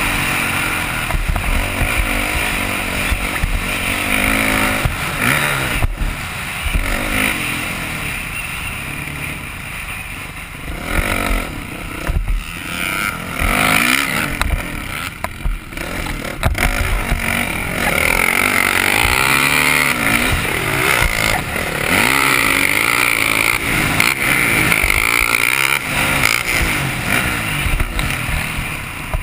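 Motocross bike engine revving up and down as the rider accelerates and shifts, easing off around the middle through a corner, then pulling hard again. It is heard from a camera on the rider's helmet.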